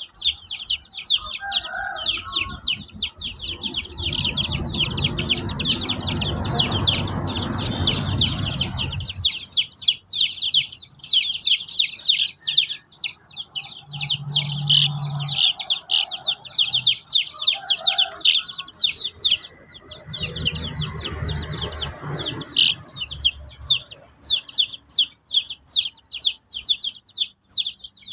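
Flock of young chicks peeping continuously: a dense stream of high, short, falling peeps, many a second. Twice a low rumbling noise rises under them for a few seconds.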